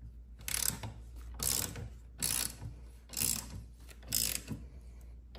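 Socket ratchet with a hex bit socket clicking in five short runs, about one a second, as it is swung back and forth to drive in a handlebar riser clamp bolt.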